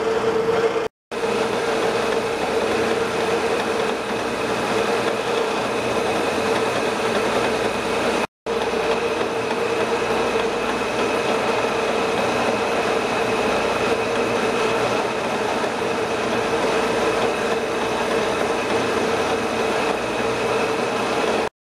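Metal lathe running steadily while turning down the outside diameter of a steel bar: a constant whine over the machine's hum and the cutting noise. The sound cuts out briefly twice, about a second in and about eight seconds in.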